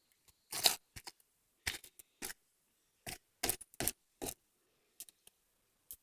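Slime being squeezed and poked, making irregular sticky clicks and pops, about a dozen in a few seconds, the loudest a little under a second in.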